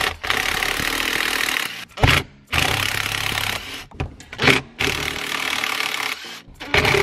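Makita cordless impact driver loosening 8 mm bolts, in three runs of a second or more each with short breaks between.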